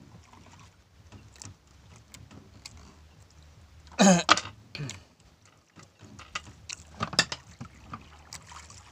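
A fishing handline is hauled in hand over hand with a hooked fish on it, giving scattered light taps and splashy clicks and a few sharper knocks about seven seconds in. A short falling vocal sound comes about four seconds in, over a low steady hum.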